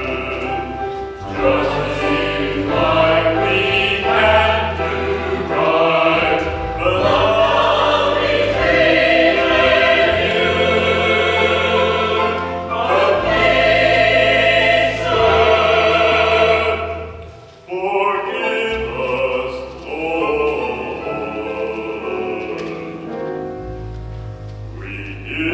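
Mixed church choir singing in parts, with loud sustained phrases for most of the time, a brief break about three-quarters of the way through, then softer singing.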